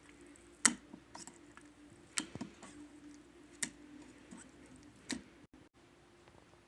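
Slime being pressed and squished by hand, giving sharp clicking pops about every second and a half with softer ticks between, over a faint steady hum.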